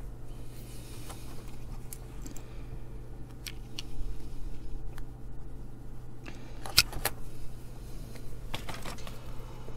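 Scattered small clicks and light metallic taps from hands and tools handling a short antenna wire and a small radio kit circuit board, over a steady low hum.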